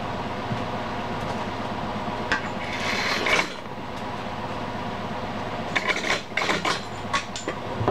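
Steady machine hum with several fixed tones, under the clinks and knocks of metal tools being handled at a bench vise: a short rush of noise about three seconds in, then a quick run of sharp clicks and knocks near the end.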